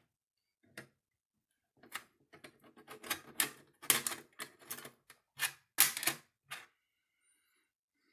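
Small magnetic blocks clicking and clacking on a metal tray as they are moved and set in place. A single tap comes first, then a quick, irregular run of sharp clacks from about two seconds in that stops shortly before the end.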